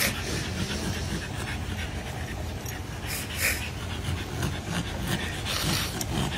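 A man crying hard: sobbing with heavy, gasping breaths, strongest a little past halfway and near the end.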